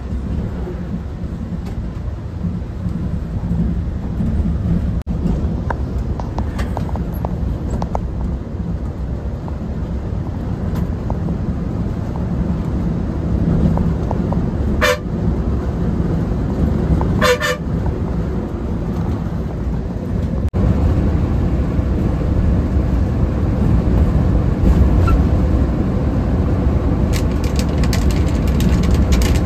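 Steady low rumble of a bus running on the road. A short horn honk comes about halfway through, then a quick double honk a couple of seconds later. The rumble grows a little louder in the last third.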